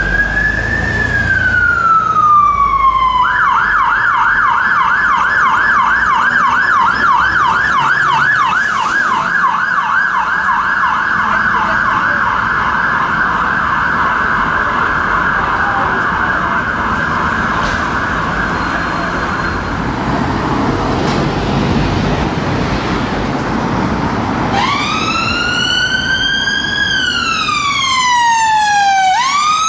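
London Fire Brigade Command Support Unit's siren in a slow rising-and-falling wail, switching about three seconds in to a fast yelp that warbles rapidly for some seventeen seconds over street traffic. After a few seconds of traffic alone, an ambulance siren starts a slow rising-and-falling wail near the end.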